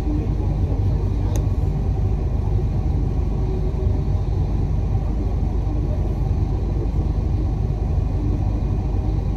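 Steady low rumble of a moving bus and the surrounding road traffic, heard from the bus's upper deck.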